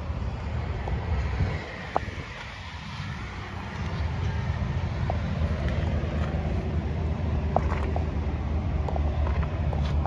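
Low, steady rumble of wind buffeting the microphone, with a few faint clicks.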